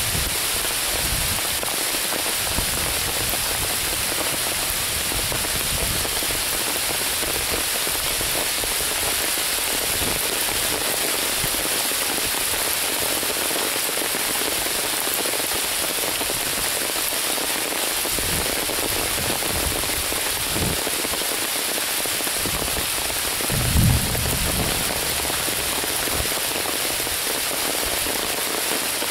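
Steady rain falling on the leaves and ground of a woodland, a dense even hiss. About three-quarters of the way through, a brief low thump is the loudest moment.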